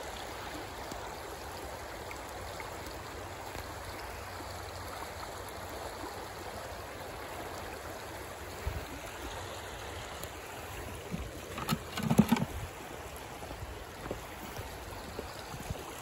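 Shallow creek running over rocks in a steady rush. About twelve seconds in, a short cluster of knocks stands out above it.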